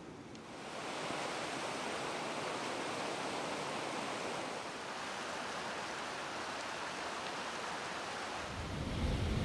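River Esk rushing steadily over rocks and small cascades. Near the end, wind buffets the microphone and adds a low rumble.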